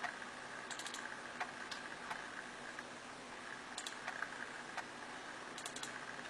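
Faint clicks of a computer mouse: single clicks and three quick runs of three or four ticks each, over a faint steady hiss.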